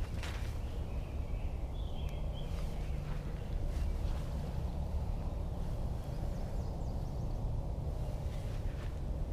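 Outdoor ambience: a steady low rumble of wind on the microphone, with a few faint bird chirps in the first few seconds.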